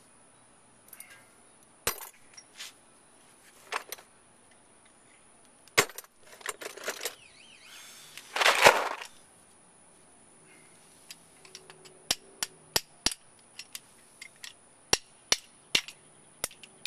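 Metal hand tools clinking and clicking as a socket, extension and wrench are handled on the side-step bolts: single sharp clicks a couple of seconds apart, one louder half-second clatter about halfway through, and a quicker run of clicks in the last five seconds.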